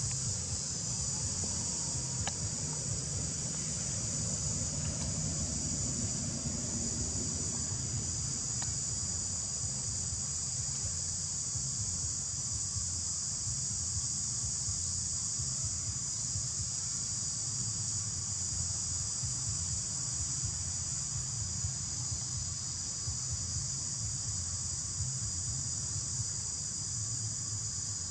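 Steady, high-pitched insect chorus, a continuous drone of several tones, with a low rumble underneath.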